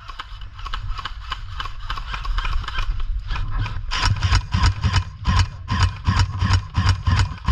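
Airsoft guns firing a rapid string of shots, sharp clicks that grow stronger and settle into about four a second from about halfway through.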